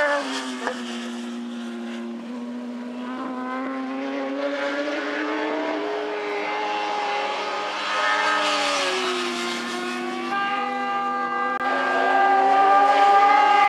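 Racing superbike engines running hard at speed, their pitch stepping up and dropping back again and again with gear changes and throttle. They grow louder toward the end as the bikes come closer.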